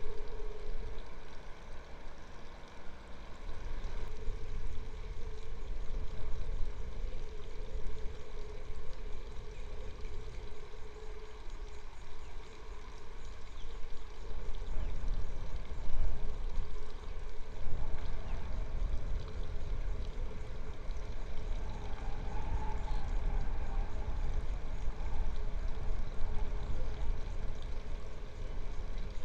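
Outdoor ambience: wind rumbling on the microphone in uneven gusts, over a faint steady hum.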